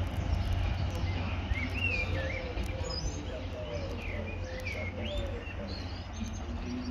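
Small birds chirping and tweeting, short rising and falling calls scattered through, over a steady low rumble.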